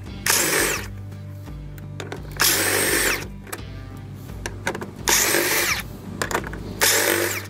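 Cordless drill spinning in four short bursts, each about half a second, as it drills out the plastic rivets in a factory plastic bumper; the motor's whine drops as each burst winds down.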